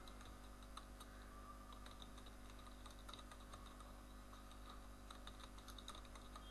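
Faint typing on a computer keyboard: irregular light key clicks, more of them in the second half, over a steady low electrical hum.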